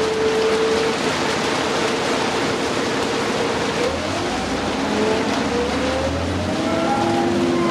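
Inside a 2009 New Flyer D60LFR articulated diesel bus: a steady hiss of heavy rain and road noise, with the drivetrain's whine holding one pitch, then rising about four seconds in as a deeper engine rumble swells and the bus picks up speed.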